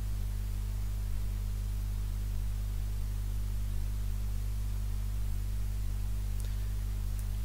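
Steady electrical mains hum, a low buzz of several stacked tones, with hiss from the recording, and two faint clicks near the end.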